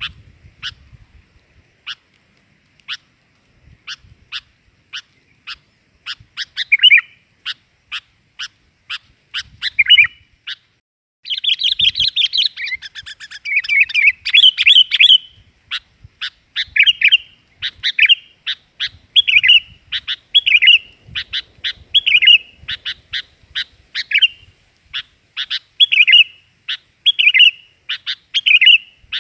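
Sooty-headed bulbul (kutilang) calling: a string of short, sharp chip notes about one or two a second, a dense run of chattering starting about eleven seconds in and lasting some four seconds, then chips alternating with short warbled phrases.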